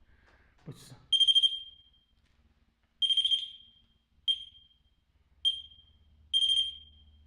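Electronic beeper of a ghost-hunting trigger ball going off in five irregular, high-pitched beeps, some short chirps and some held for most of a second. It is a sign that the device is being set off, which the investigator takes for spirits touching it.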